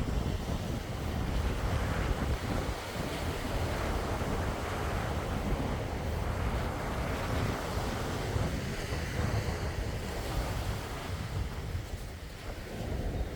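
Calm sea, small waves washing in steadily, with wind rumbling on the microphone.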